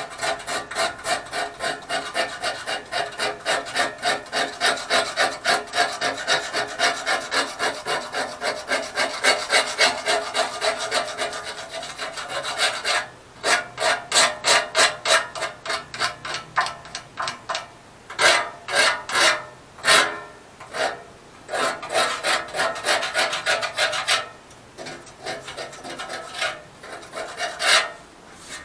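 Bubbled rust being scraped off the rusty steel dash panel of a lawn tractor by hand, in fast back-and-forth strokes of about three or four a second. About halfway through it breaks into short runs of strokes with pauses between them.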